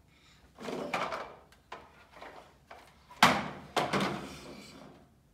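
Plastic toy trucks being moved and set down on a wooden table: a rolling, scraping noise about half a second in, then two sharp thunks a little past the middle, about half a second apart.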